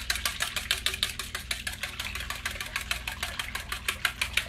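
Wire whisk beating a liquid batter mix of egg, milk, water and oil in a stainless steel bowl: a fast, even clatter of about seven strokes a second against the metal.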